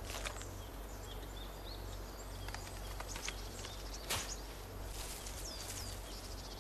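Quiet forest ambience: a small bird gives several short falling chirps. A few sharp snaps and rustles come through, the loudest about four seconds in.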